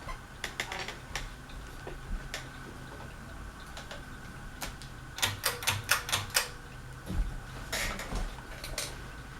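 Harbor Breeze Aristocrat ceiling fan running on medium speed, with a steady faint motor hum and irregular sharp clicks and ticks. The clicks come in a quick cluster about five to six and a half seconds in.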